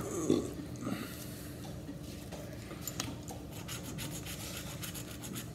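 A coin scraping the coating off a paper scratch-off lottery ticket, in quick repeated strokes.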